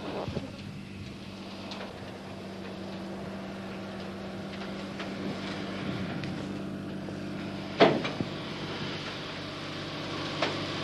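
Bridging tank's engine running steadily while its scissors bridge unfolds, with one sharp knock about eight seconds in.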